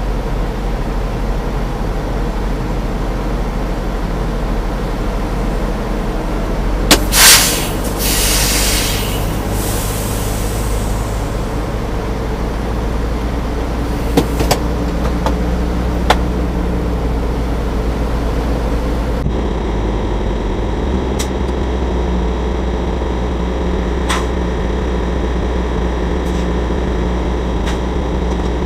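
Semi-truck diesel engine idling steadily. About seven seconds in, a sharp burst of air comes, followed by a hiss that fades over a few seconds, as the air brakes are set. A few sharp clicks and knocks follow later.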